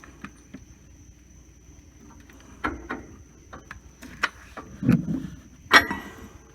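Scattered metallic clinks and knocks of hand tools and steel parts being handled and set down, with one duller thud near the middle, over a faint steady high-pitched tone.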